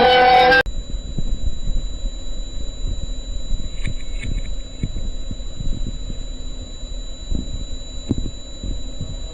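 Music cuts off abruptly about half a second in, giving way to a steady low rumble of static-like noise with a thin, high-pitched electronic whine held over it, the sound of a hijacked broadcast signal.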